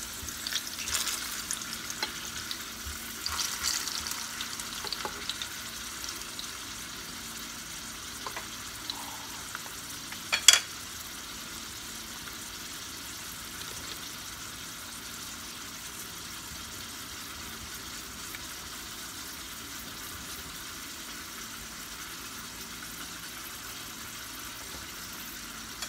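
Slices of sweet potato sizzling steadily in hot oil in a frying pan. In the first few seconds there are light scrapes and clicks as a spatula and fork turn the slices, and about ten seconds in there is a single sharp clack.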